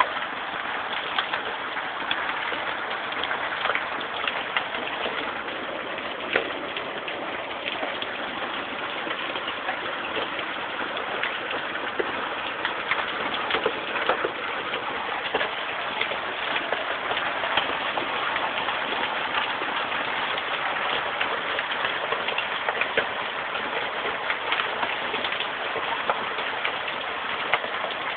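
Heavy rain and hail pelting down, a steady hiss scattered with irregular sharp clicks of hailstones striking hard surfaces.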